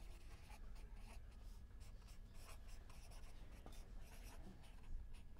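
A pen writing on a book's page, a faint scratching in short, irregular strokes as a dedication is written by hand.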